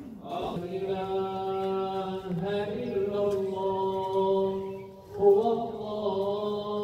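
Men's voices chanting an Islamic funeral chant in long, held notes. The chant dips briefly about five seconds in, then swells back up.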